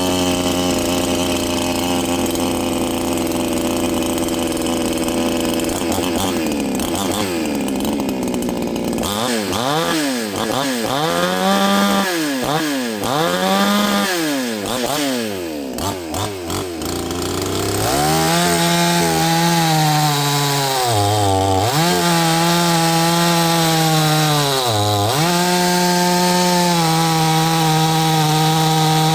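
Neotec 62cc two-stroke chainsaw running: it idles at first, is revved up and down several times, and is then held at high revs with two brief dips in pitch.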